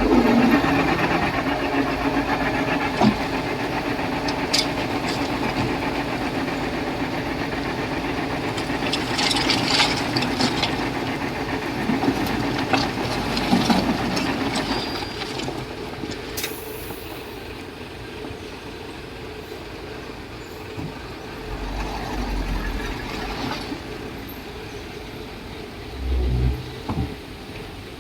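Komatsu D31P crawler bulldozer's diesel engine running, with the clank and squeal of its steel tracks. It is louder in the first half and quieter after about halfway, with a few low thumps near the end.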